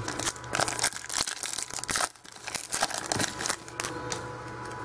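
Close handling noise: crinkling and rustling with many irregular sharp clicks and scrapes, as trading cards and the camera are handled right against the microphone. There is a short lull about two seconds in, and the noise dies down near the end.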